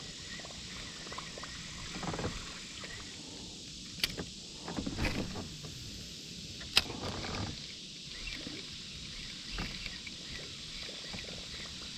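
Handling and water sounds from a fishing kayak: two sharp clicks, about four and seven seconds in, the second the loudest, and a few soft splashy rustles over a steady high hiss.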